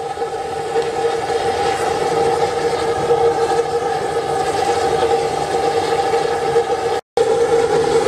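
Compressed-air spray oil burner firing a long flame through a steel tube: a steady roar of flame and air with a steady droning tone in it. The sound cuts out for an instant about seven seconds in.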